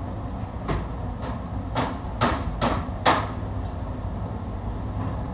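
Kitchen clatter: about six sharp knocks of cookware in quick succession, the last one the loudest. Under them runs the steady low hum of the extraction hood fan.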